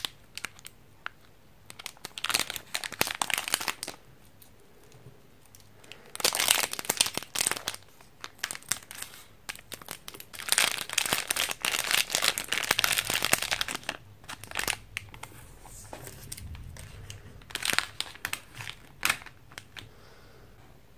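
Crinkly plastic wrapper of a Sonomanma gum packet being handled and cut open with scissors: four bursts of crackling with quiet gaps between.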